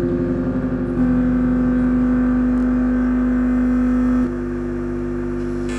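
Loud electronic drone from a live experimental performance, built of several held tones. It pulses rapidly until about a second in, then holds smooth, and drops abruptly to a softer, different-sounding drone about four seconds in.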